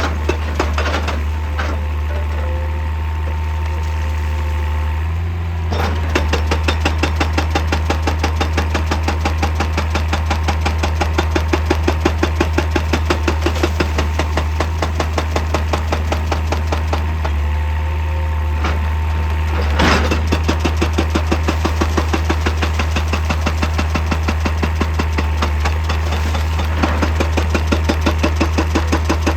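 Hydraulic breaker on an excavator hammering rock in a rapid, even rhythm over the steady run of the excavator's engine. The hammering eases off twice, leaving the engine's steady hum, then picks up again.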